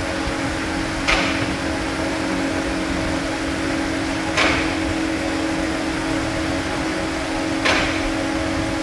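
A steady machine hum, with a short sharp click three times at even intervals of about three seconds.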